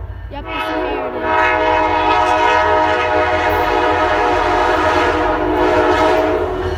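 Diesel locomotive air horn blowing: a short blast, then a long steady blast that cuts off near the end, over the low rumble of the approaching train.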